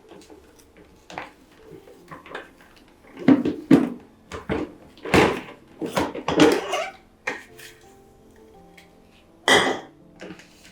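A run of clatters and knocks from household things being handled, several in quick succession in the middle and one more near the end, over soft background music.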